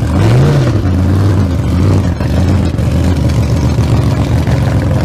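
Car engine running loudly, with a brief rise and fall in revs about half a second in.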